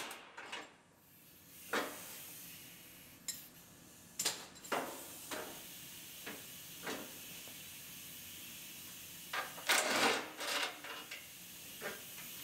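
Light metallic clinks and knocks of tools and car-body parts being handled, coming at irregular intervals with a denser cluster about ten seconds in, over a faint steady hiss.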